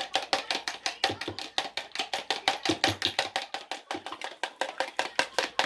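Raw eggs being beaten in a bowl: the mixing utensil clicks against the bowl in a fast, even rhythm of about six strokes a second.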